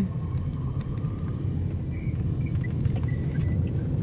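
Steady low rumble of a moving vehicle's engine and road noise, heard from inside the vehicle.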